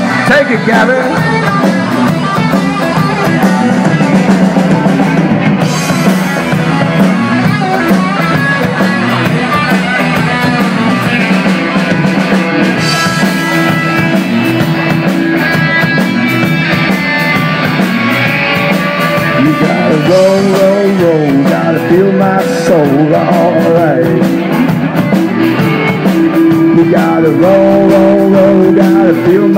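Live rock band playing loud: electric guitar, bass and drum kit, with a man singing in the second half.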